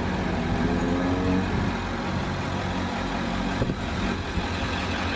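Heavy vehicle engine idling steadily with a low hum, the armored tornado intercept vehicle's engine. Its pitch rises slightly in the first second or so.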